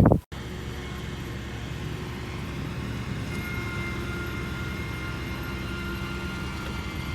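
A steady low mechanical hum with a few faint high whining tones, starting abruptly after a brief gap; a faint extra tone joins about three seconds in.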